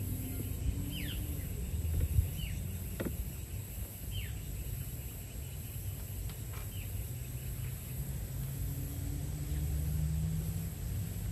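Outdoor ambience: a bird calling several short, falling whistles, over a steady insect trill and a low rumble. A single sharp click comes about three seconds in.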